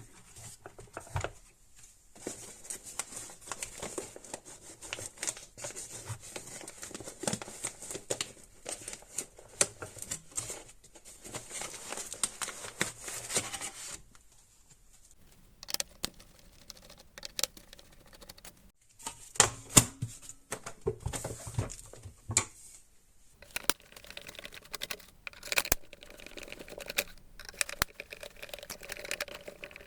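Hands handling and taking apart a small plastic handheld vacuum: scattered clicks and taps, with a long stretch of rubbing or scraping in the first half, then more irregular clicks after a brief lull.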